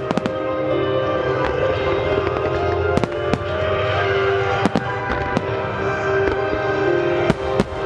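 Aerial firework shells from a star mine barrage bursting in a string of sharp bangs, the strongest pair near the end, over music that is synchronised with the display.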